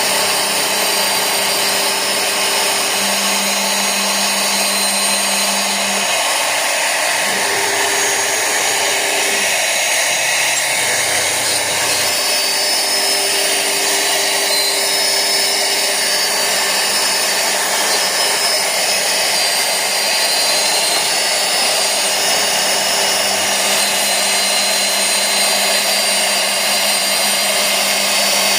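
CNC router cutting an aluminium composite (ACM) panel: the spindle runs steadily with a high whine over a constant rushing noise. Lower tones start, stop and change pitch every few seconds as the machine moves.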